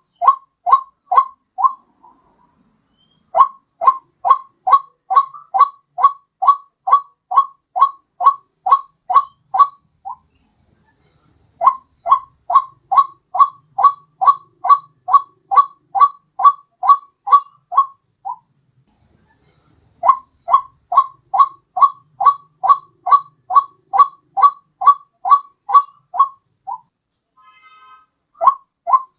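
White-breasted waterhen (ruak-ruak) calls played as a bird-trapping lure: loud, evenly repeated notes, about two and a half a second, in bouts of about seven seconds with short pauses between.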